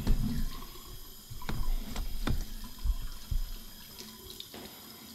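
Bathroom sink tap running, with several sharp clicks and knocks in the first few seconds as small bottles and toiletries are handled on the counter.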